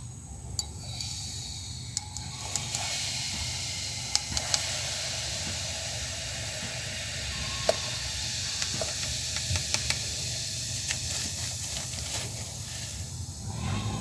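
Gold-bearing aqua regia solution in a glass beaker fizzing with a steady hiss and small scattered pops as sodium metabisulfite reacts in it, the stage where the gold is precipitated.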